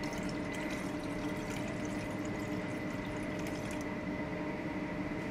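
Citrus juice pouring in a thin stream from a plastic tub into a stainless steel bowl, over a steady kitchen ventilation hum.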